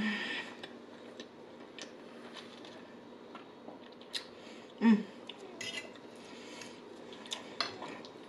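Metal fork clicking and scraping against a china plate in scattered short taps while eating, with quiet chewing between. The loudest tap comes about five seconds in.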